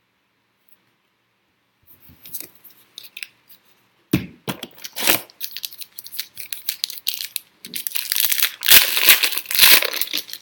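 Foil wrapper of a football trading-card pack being torn open and crinkled in the hands: after a short silence, irregular sharp crackles begin about two seconds in, and the crinkling is densest and loudest near the end.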